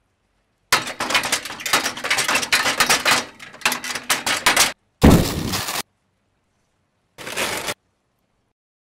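Cartoon sound effects of things breaking: a run of cracking and crashing for about four seconds, then a heavy crash about five seconds in, and a shorter crash near the end.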